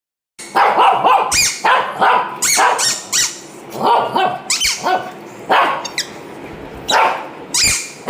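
Shih Tzu barking repeatedly in quick clusters of two or three sharp, high-pitched barks with short pauses between.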